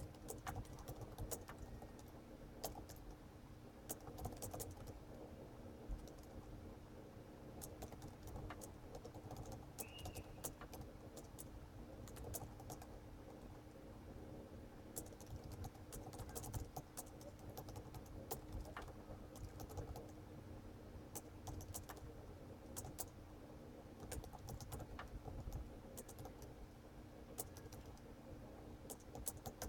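Computer keyboard being typed on at a steady pace, a continuous run of quick, irregular key clicks, over a faint steady hum.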